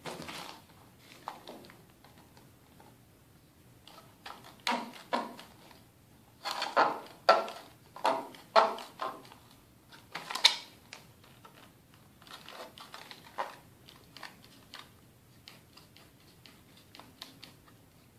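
Red-handled tin snips cutting through the thin plastic of a stormtrooper knee armour piece: a run of sharp snaps as the blades bite and the plastic gives. They come thickest and loudest from about four to eleven seconds in, then ease into lighter clicks.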